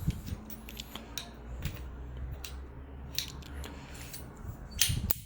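Scattered clicks and light knocks from a folding trekking pole's sections being handled and folded once its spring-loaded lock button is released, with a cluster of clicks near the end, over a low steady hum.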